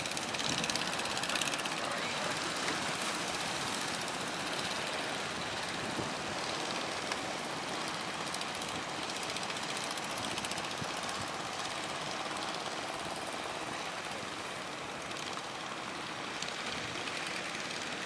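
Engines of several outrigger fishing boats running at speed together, a steady rapid knocking, mixed with the rush of water from their wakes.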